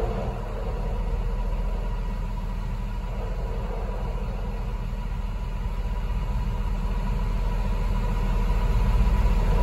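Heavy diesel machinery running steadily at idle: a continuous low drone with a faint steady whine above it, growing slightly louder toward the end.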